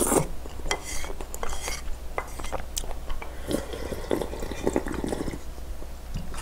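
Slurping and sipping spicy dumpling soup broth from a bowl, with chewing and sharp light clicks of a wooden spoon against the bowl.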